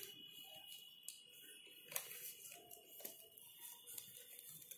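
Near silence: faint room tone with a steady high whine and a few soft clicks, one about two seconds in and another about a second later.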